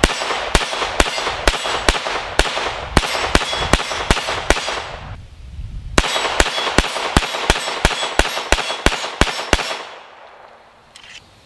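Walther Colt 1911 .22 LR pistol fired in quick succession, about three shots a second. There are two strings of shots with a short pause about five seconds in, and the firing stops about ten seconds in.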